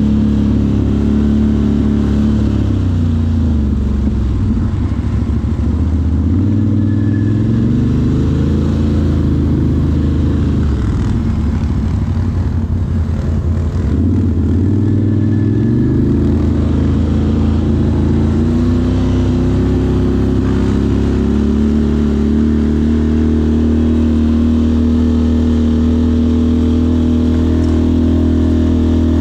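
Off-road ATV engine running under changing throttle: its pitch falls and rises several times in the first half, then holds steadier and creeps up.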